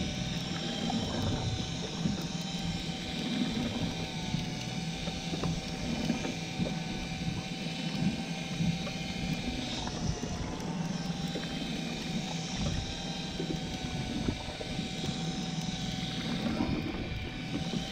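Electric deep-drop fishing reel winding in line with a steady motor whine, over the low hum of the boat's engine.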